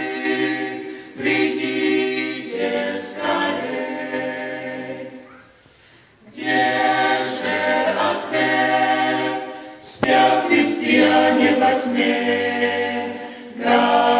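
Mixed group of women and men singing a Russian-language gospel song a cappella, amplified through handheld microphones. The singing breaks off briefly about six seconds in, between phrases, and then resumes.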